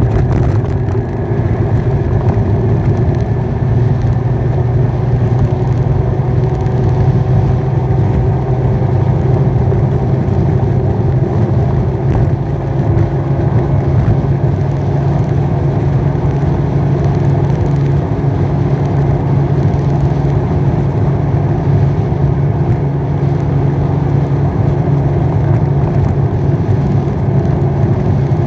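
The ridden bike's motor running at a steady, even pitch, with steady wind and road rumble on the microphone.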